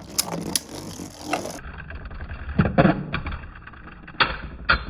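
Two Beyblade Burst tops, Wizard Fafnir and Harmony Pegasus, spinning in a plastic Hypersphere Beystadium: a steady low whirr and scrape, broken by several sharp clacks as they hit each other and the stadium walls.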